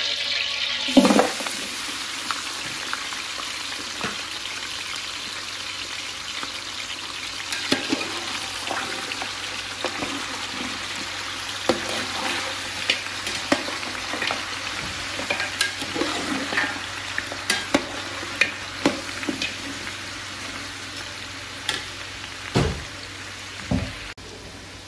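Chunks of raw meat dropped into hot oil in a metal pot, setting off a loud sizzle about a second in that slowly dies down as the meat fries. Frequent short clicks and scrapes of a metal slotted spoon stirring against the pot run through it, with two duller thumps near the end.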